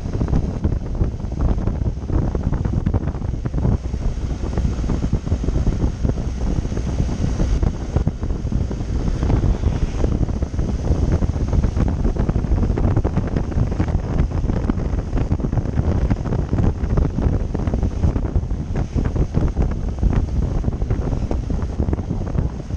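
Steady, heavy wind buffeting on the microphone of a camera riding along on a moving motorcycle, a dense low rumble with no let-up.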